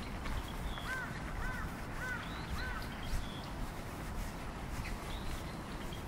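A crow cawing four times in quick succession, about half a second apart, starting about a second in; each caw rises and then falls in pitch.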